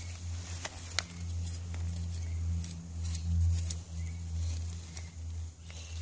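Small hand trowel digging in garden soil, giving scattered clicks and scrapes, the sharpest about a second in. A steady low hum runs underneath.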